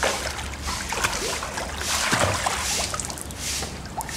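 Swimming-pool water splashing and sloshing as a small child in inflatable armbands paddles through it.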